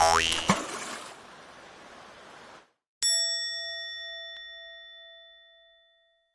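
Rushing stream water, with a loud sudden burst and a quick rising sweep at the start. The water cuts off abruptly, and a single bright chime ding rings out and fades over about three seconds, an edited-in sound effect.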